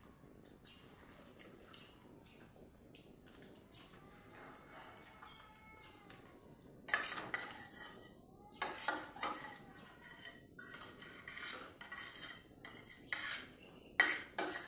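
Cutlery clinking and scraping against a dish during eating, in scattered strokes that become louder and more frequent about halfway through.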